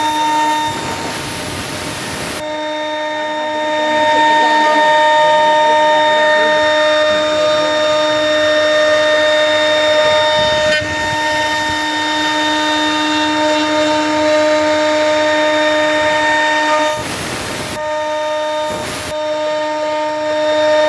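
CNC wood router spindle running with a steady whine as it carves wood, with brief stretches of louder hiss near the start and near the end.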